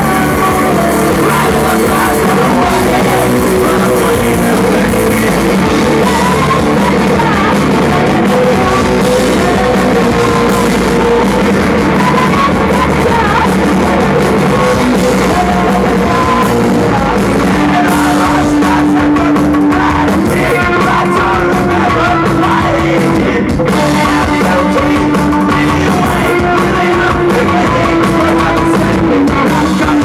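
Live rock band playing loud, with electric guitars, drums and singing.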